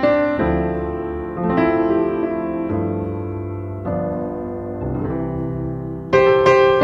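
Slow piano music: chords struck about once a second and left to ring and fade, with louder chords at the start and near the end.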